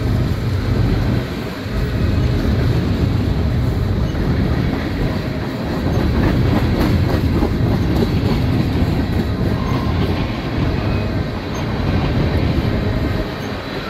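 Freight train of covered hoppers and tank cars rolling past: a steady rumble of steel wheels on rail, with a clickety-clack of wheels over the rail joints.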